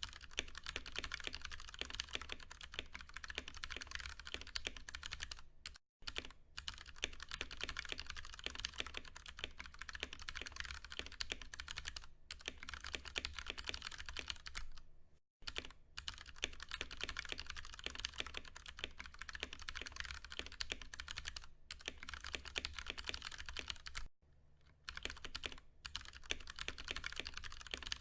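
Steady fast typing on a Ducky One 2 Mini mechanical keyboard with tactile Cherry MX Brown switches: rapid keystrokes in quick runs, broken by brief pauses several times.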